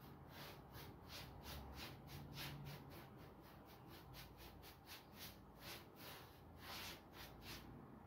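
Paintbrush stroked quickly back and forth along the edge of a wooden tabletop, brushing on a white finish: faint, even brushing strokes, about three a second, which stop near the end.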